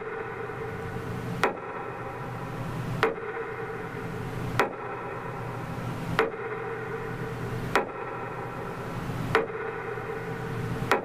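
Metronome beating slowly for a minute of silence: single sharp ticks evenly spaced about every one and a half seconds, over a steady low hum.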